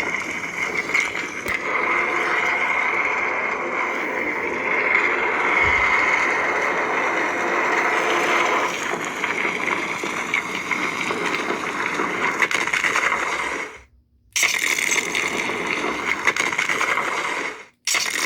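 Lightsaber soundboard playing the Reaver's Arsenal 'Earth' sound font: a continuous gritty blade hum with a steady high tone through it, changing in texture as the blade moves. It cuts out briefly twice, for about half a second roughly three-quarters of the way in and again for a moment near the end, then comes back at once.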